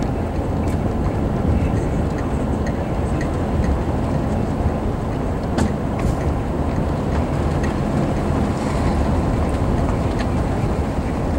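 A car driving along a snow-patched road: a steady low rumble of engine and tyres, with scattered small ticks and crackles.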